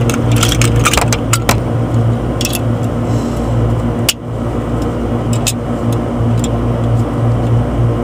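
Steady machine hum from running equipment, with sharp clicks and knocks from a gloved hand and a tool working at the air conditioner's housing and wiring, several in quick succession at the start and a few scattered later.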